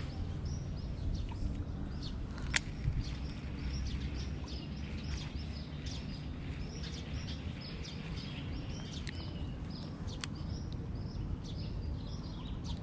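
Small birds chirping over and over, short high calls that slide downward, over a steady low rumble. A couple of sharp clicks stand out, about two and a half seconds in and again near ten seconds.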